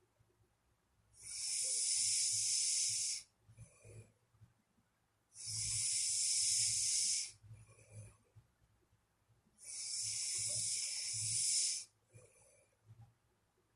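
Natural sleep snoring: three long, hissing breaths about four seconds apart, each lasting about two seconds, with soft low breathing between them.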